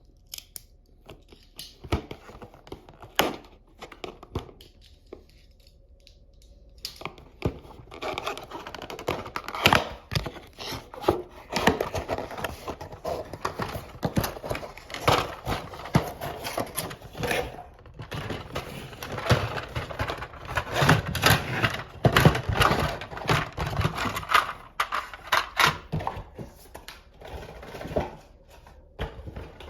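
Hands unboxing a Plarail toy railroad crossing: irregular clicks and knocks of plastic parts, with rustling and crinkling of packaging. It is sparse at first, then busy with clicking and rustling from about a quarter of the way in until near the end.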